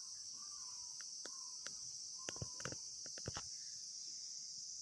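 Steady high-pitched insect drone, with a few faint clicks and short chirps around the middle.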